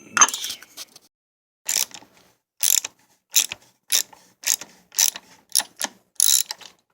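A 3/8-inch ratchet with a socket adapter clicking in about nine short strokes, coming faster toward the end, as it unscrews a Mercedes W210's oil filter housing cap.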